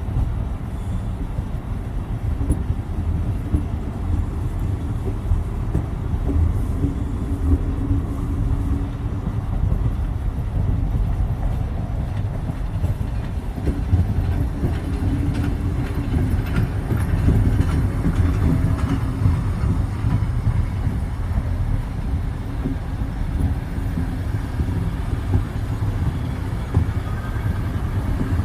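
A train running past with a steady low rumble, with faint clicking from the wheels about halfway through.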